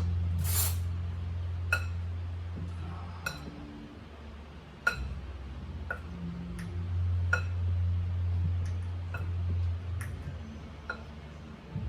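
Light ticks and clinks at irregular intervals, roughly one every second or so, each with a brief ring, over a steady low hum.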